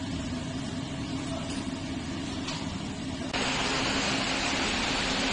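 Steady low hum of machinery running. About three seconds in, a steady hiss of compressed air starts at the machine's air-supply valve and pressure gauge.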